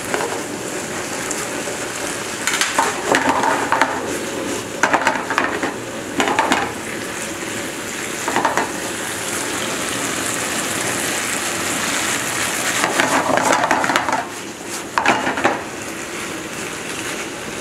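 Hokkien noodle stir-fry sizzling steadily in a non-stick frying pan. A silicone spatula stirs and scrapes the noodles in six short, louder bursts, about two to three seconds apart.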